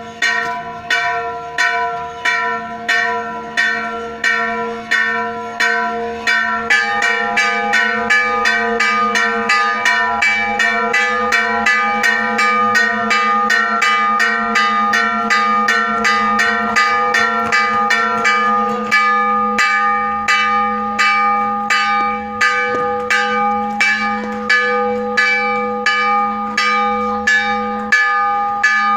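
Two church bells in an open bell tower rung by hand in a repeated peal, the call to six o'clock Mass. The strikes come about twice a second at first, then quicken about seven seconds in as another bell's tone joins, and the pattern shifts again a little before halfway.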